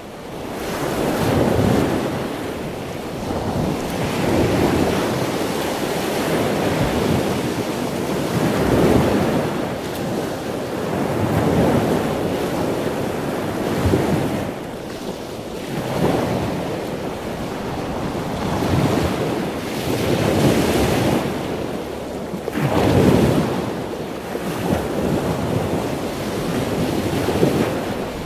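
Rough sea with strong wind: waves surging and breaking in irregular swells every few seconds.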